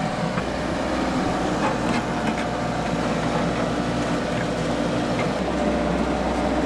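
Tracked excavator's diesel engine running steadily, with a few faint knocks.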